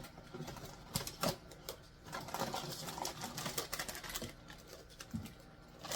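A small cardboard blind box being opened by hand: irregular clicks, taps and rustles of cardboard and packaging.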